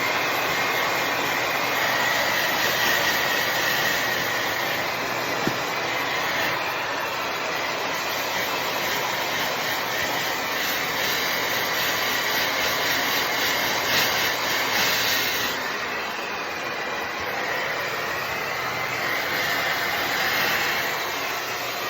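Hand-held hair dryer blowing steadily, a loud rush of air with a high whine over it that wavers as the dryer is moved about, used to dry a dog.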